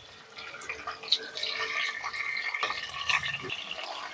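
Country chicken pieces sizzling and crackling in hot sesame oil in a pressure cooker, just added to the pan. The crackle grows louder about a second and a half in.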